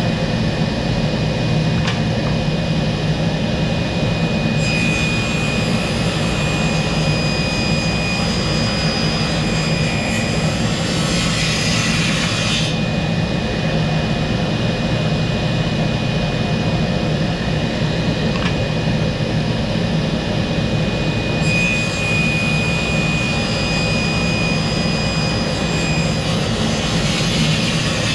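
Woodworking power tool running steadily with a constant hum. Twice, for several seconds each, a higher hiss with a thin whine rises over it, as the tool works the wood.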